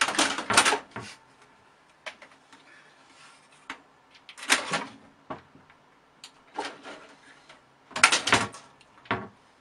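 A cat's claws scrabbling and bumping against the side of a cabinet and a curtain as it tries to climb, in several short bursts of scratching and knocking with quieter pauses between.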